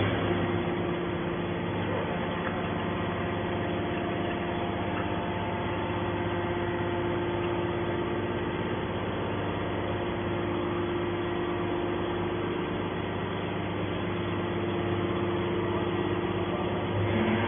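Hydraulic metal baler's power unit running with a steady, even hum.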